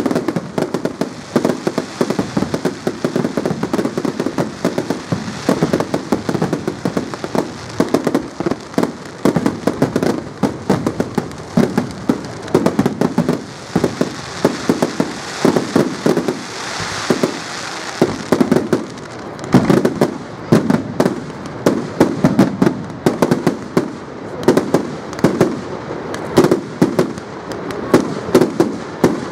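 Fireworks display going off in rapid succession: a dense, continuous run of bangs and crackles, several a second, with a hissing rush a little over halfway through.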